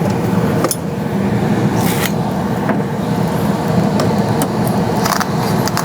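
High-efficiency (90%) gas furnace running with its blower on, a steady hum and rush of air, broken a few times by short scrapes and knocks as the air filter is handled and slid out of its slot.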